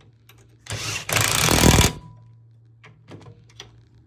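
Cordless impact wrench hammering for about a second, short then longer, as it runs the 9/16 nut up the golf cart's rear leaf-spring shackle bolt. The tightening shackle plate draws the new bushing onto its sleeve.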